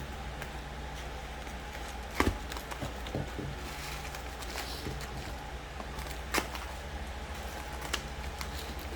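Hands handling a book and its packaging: a few sharp taps and light crackling over a steady low hum.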